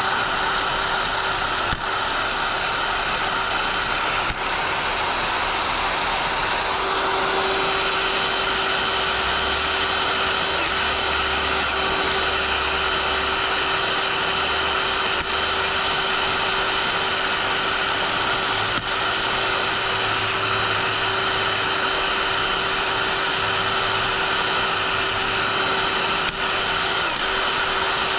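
DeWalt 20V MAX XR brushless cordless drill running continuously with a wire brush, scrubbing carbon and gasket residue off a Briggs and Stratton cylinder head. The sound dips briefly a few times, as the drill keeps wanting to cut off.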